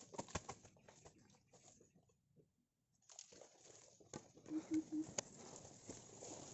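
Footsteps and rustling through dry leaf litter and undergrowth, with scattered sharp clicks, broken by about a second of near silence.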